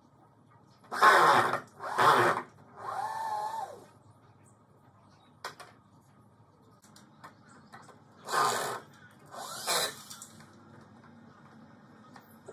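Power drill running in four short bursts, two about a second apart near the start and two more later, as screws are driven out of a timber support beam to take it down. A softer whine that rises and falls follows the first pair.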